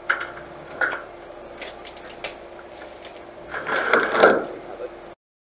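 Off-road vehicle running slowly, with a steady low hum and scattered clicks and rattles, and a louder noisy burst about four seconds in. The sound cuts off abruptly about five seconds in.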